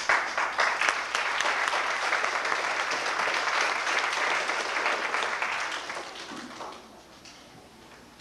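Audience applauding, many hands clapping together, dying down about six to seven seconds in.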